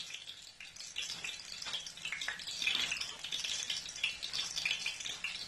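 Blocks of tofu frying in a shallow layer of hot oil in a pan: the oil sizzles with many small, irregular crackling pops.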